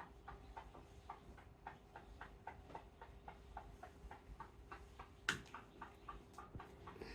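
Faint, even ticking, about three or four clicks a second, over a faint steady hum, with one louder click a little over five seconds in.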